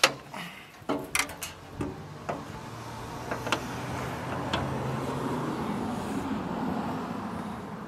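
Metal fan shroud with an electric fan being set against a forklift radiator: a run of light knocks and clanks as it is fitted. From about three seconds in a steady low rumble swells, then eases near the end.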